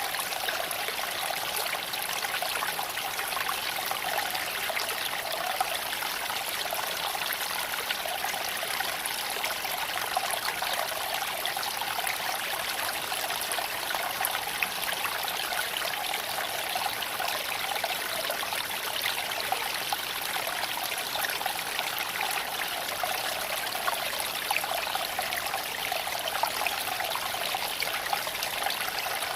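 Creek water flowing steadily over stones, with occasional brief faint ticks.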